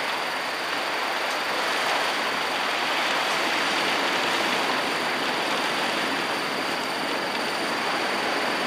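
Heavy thunderstorm downpour on a bus, heard from inside the cabin: a steady, even rushing of rain.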